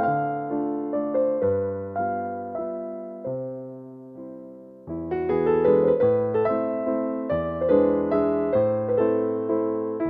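Background piano music: single notes and chords struck and left to fade. It thins out and grows quieter in the middle, then picks up again about five seconds in.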